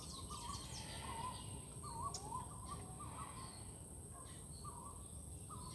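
Birds calling: a scattering of short, wavering notes, repeated every half second or so, with a few higher chirps, over a steady high-pitched hum.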